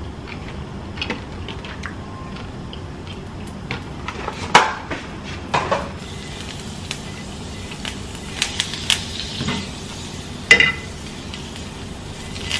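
A metal fork clinking and scraping against a nonstick frying pan several times as rosemary sprigs are pushed around in hot oil, over a soft sizzle.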